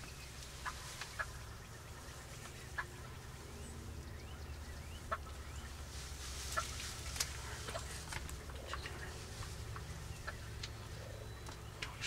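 Wild turkeys calling at a distance, with short sharp clucks scattered through, over a low steady rumble.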